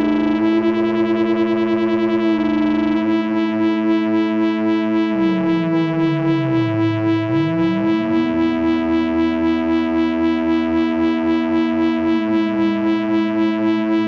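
Moog Grandmother analog synthesizer sustaining a held note while one oscillator's pitch is turned by hand. Midway that tone slides down about an octave and back up against the other steady tones, then settles a little lower near the end. The sound pulses in a regular wobble throughout.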